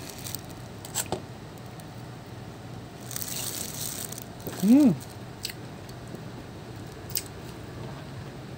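Ripe pomelo being peeled and eaten: small wet tearing and squishing sounds of the segment membrane and juicy pulp, with clicks from the mouth while chewing. Just before halfway through comes a short hum that rises and falls in pitch, the loudest sound.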